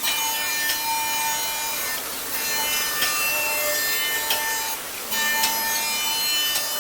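Glass CNC machining centre's spindle grinding the edge of a glass sheet with a diamond wheel: a steady high tone over a rough, rasping grinding noise.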